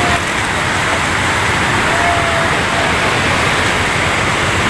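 Water pouring over a concrete weir into the river, a loud, steady rush with no let-up.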